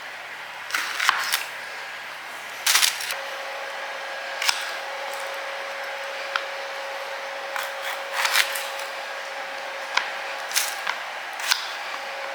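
Knife splitting peppers on a cutting surface: scattered short, sharp clicks and knocks at uneven intervals. A faint steady hum comes in about three seconds in.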